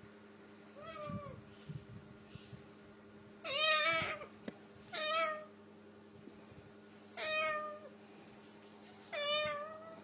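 White cockatoo imitating a cat's meow: a faint call about a second in, then four louder meows a couple of seconds apart, each falling in pitch at the end, the first the longest and loudest.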